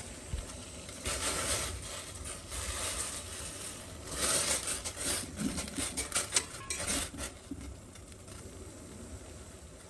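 Sorrel (gongura) leaves frying in hot oil in a steel pot, with a metal spatula stirring and scraping against the pot. The scrapes and clinks come thick in the middle, then die down to a quieter sizzle.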